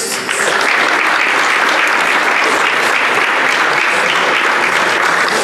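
Audience applauding: a steady round of clapping from many hands in a large hall.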